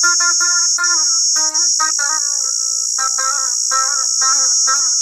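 Long-necked fretted lute plucked in quick repeated notes, playing a folk melody, over a loud steady high-pitched buzz of insects.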